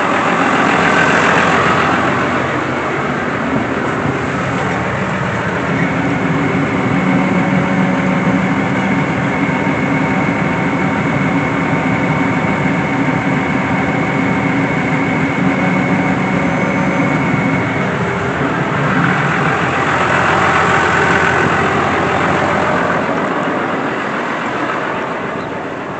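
Tractor engine running steadily, powering a round baler that is being run to check its newly spliced belts. From about six to eighteen seconds in, a steady whine sits on top of the engine and machinery noise.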